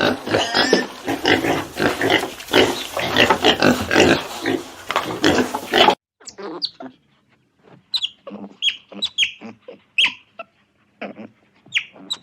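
Pigs calling, a dense and continuous din of many overlapping calls, for about six seconds; then it cuts abruptly to a sparser series of short, high calls that fall in pitch.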